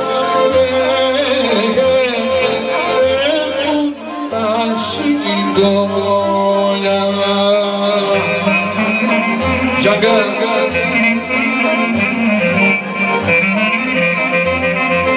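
Greek folk band playing an instrumental passage: a melody line over a bass note repeating in short, regular pulses.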